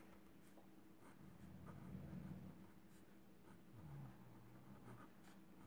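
Faint scratching of a pen writing on paper, with a few light ticks as the strokes are made.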